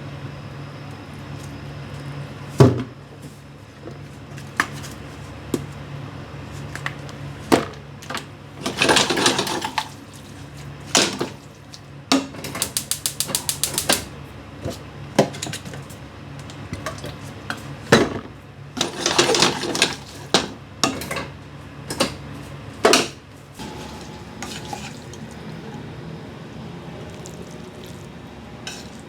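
Kitchen cookware and utensils clattering during cooking: scattered knocks and clinks, two longer rustling stretches, and a quick run of clicks in the middle, over a steady low hum.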